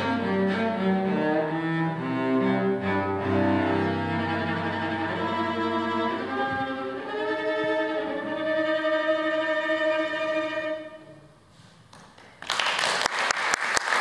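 Solo cello playing the closing phrase of a piece, climbing from low notes to higher ones and ending on a long held note that fades away. After about a second of quiet, the audience breaks into applause.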